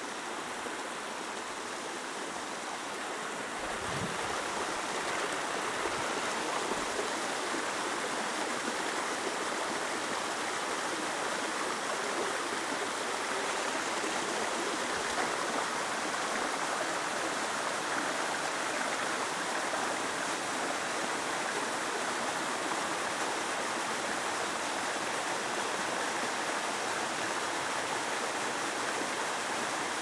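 Small mountain-stream waterfall splashing into its pool: a steady rush of water that grows a little louder about four seconds in. A dull low bump about four seconds in.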